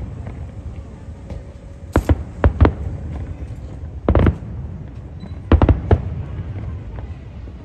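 Fireworks shells bursting in three clusters of sharp bangs, each cluster two to four reports in quick succession. The clusters start about two seconds in and follow every second and a half to two seconds, over a steady low background noise.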